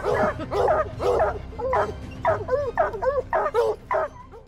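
Hunting hounds barking and baying, about a dozen short rising-and-falling calls in quick succession that stop shortly before the end.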